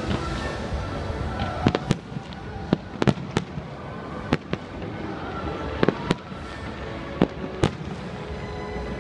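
Aerial firework shells bursting: about a dozen sharp bangs at irregular intervals, starting about two seconds in, over steady background music.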